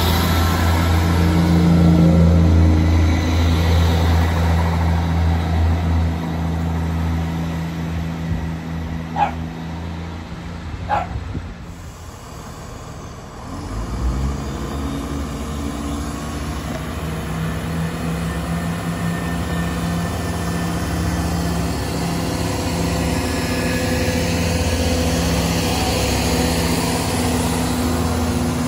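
Diesel trains' engines: a Great Western Railway train running as it pulls away, fading after about six seconds. Two short dog barks come about nine and eleven seconds in. From about fourteen seconds a CrossCountry diesel unit's engines run steadily as it comes through.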